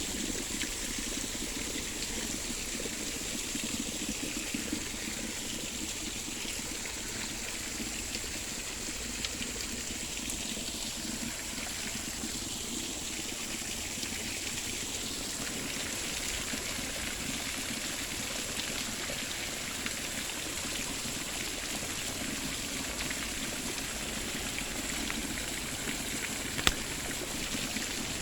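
Water running steadily, as from a garden stream or waterfall, with one sharp click near the end.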